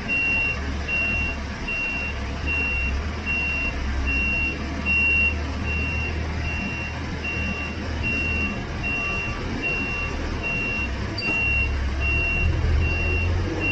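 Scania S580 V8 truck's engine running with a low rumble. Over it, a high electronic beep repeats evenly, about one and a half times a second.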